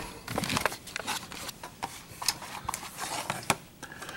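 Crinkling and crackling of the plastic wrapping as it is pulled off a Blu-ray case, with irregular clicks and taps of the plastic case being handled.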